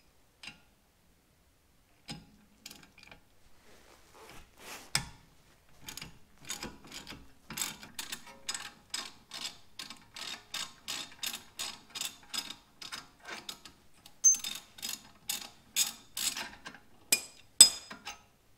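Ratchet wrench clicking as a bolt at the brake is turned. A few scattered clicks at first, then a steady run of about three sharp clicks a second from about six seconds in.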